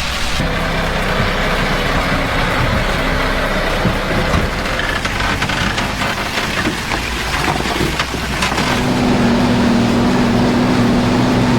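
Heavy truck engine running, a steady drone joined by a stronger steady hum from about eight seconds in.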